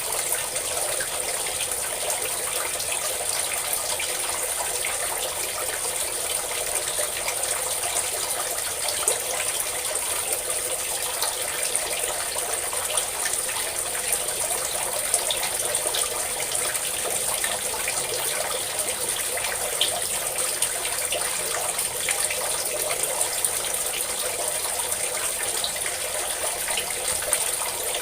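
A steady stream of water pouring and splashing, even and unbroken, light in the low end, with small spatters scattered through it.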